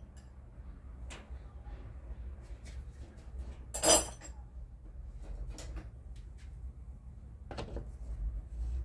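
Metal hand tools clinking and knocking as a 13 mm wrench is picked up and the nut on a washing machine's drive pulley is fitted, with one louder metallic clank about four seconds in.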